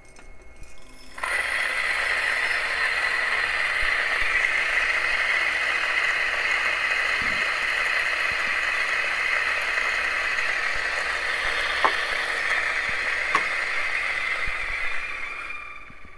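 Beans rattle into the hopper of an Option-O P64 single-dose flat-burr grinder. About a second in, the grinder starts grinding an 18 g espresso dose with a steady grinding noise. The noise fades away near the end as the burrs run empty.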